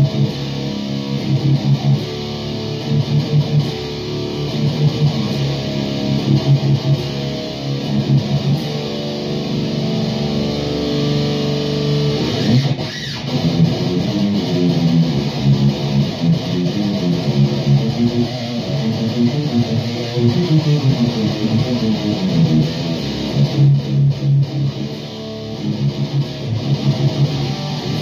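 Electric guitar played through a high-gain distortion pedal into a valve amp and Mesa/Boogie 4x12 cabinet, heavy riffing with a tight, chugging low end. The riff pattern changes briefly about twelve seconds in.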